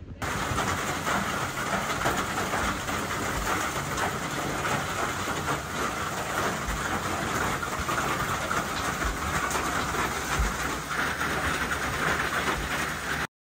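Steady, heavy rain pouring down in the woods, a continuous hiss with a few dull low thumps. It cuts off suddenly near the end.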